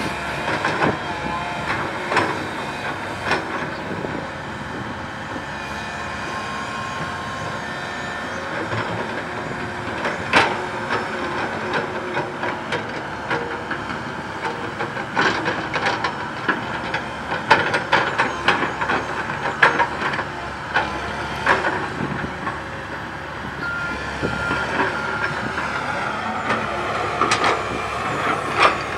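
Komatsu PC130 hydraulic excavator's diesel engine running under load as it digs, with repeated sharp clanks and knocks from the bucket and boom, thickest in the middle stretch.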